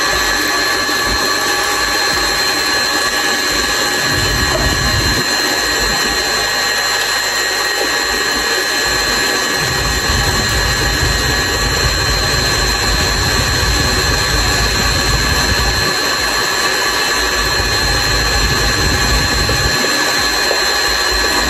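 KitchenAid Artisan stand mixer running steadily with a high motor whine, its beater working through egg-yolk and oil batter in the stainless steel bowl.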